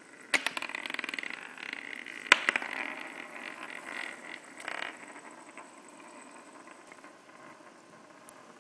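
Small spinning tops on a wooden tabletop: a sharp click near the start and a louder one about two seconds in, each followed by a fast rattling whir that dies away after about five seconds.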